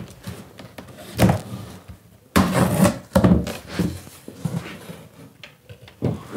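A cardboard box being cut open with a knife and its flaps pulled back: a few short scrapes and rustles of cardboard, the longest and loudest about two and a half seconds in.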